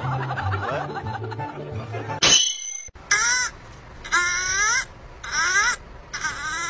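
A kitten meowing four times, about a second apart, each mew short and falling in pitch. Before it, for the first two seconds, music plays with voices and laughter, ending in a sudden cut.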